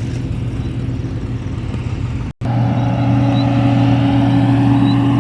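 Heavy diesel engine of a road milling machine running steadily under load. The sound cuts out for an instant a little over two seconds in, then comes back louder and steadier.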